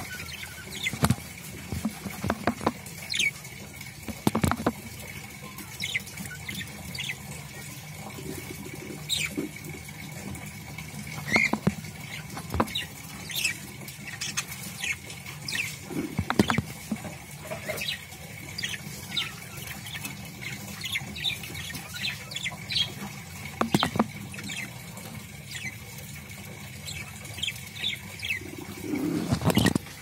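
Budgerigar moving about in a wooden nest box: scattered soft chirps and scratchy ticks and taps on the wood, with a few louder knocks, over a faint steady high whine.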